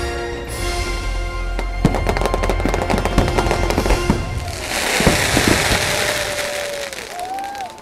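Fireworks display: a rapid run of aerial shell bursts and crackle layered over show music. The music stops about four seconds in, and a dense crackling barrage follows.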